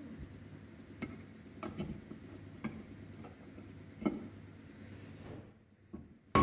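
Light metallic clicks and taps at irregular spacing, roughly one a second, as a motorcycle crankshaft is worked into its crankcase, with a sharp knock at the very end.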